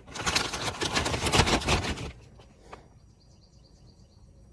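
Clear plastic zip-top bag crinkling and rustling as it is handled and a paper sheet is drawn out, for about two seconds. Then faint bird chirps.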